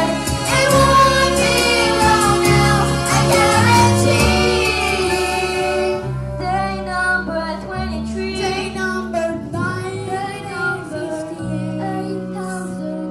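Young girls singing a musical-theatre song together through headset microphones, over instrumental accompaniment; the music gets softer about six seconds in.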